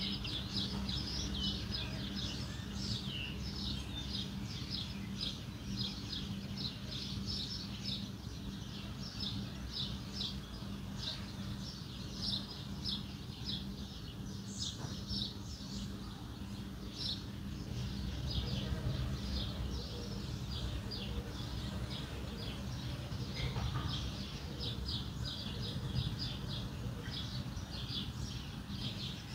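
Many small birds chirping in quick, short notes throughout, over a low, steady background hum and rumble.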